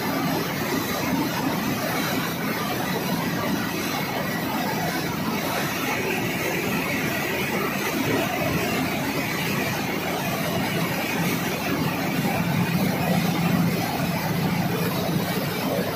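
Steady mechanical drone of running plant machinery, with a low hum that swells a little near the end.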